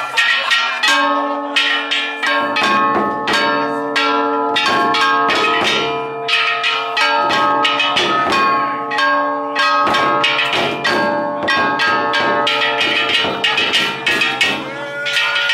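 Large taiko barrel drum on a festival cart beaten with wooden sticks together with brass kane gongs, in a dense run of strikes. The gongs keep up a bright metallic clanging and ringing over the drum beats.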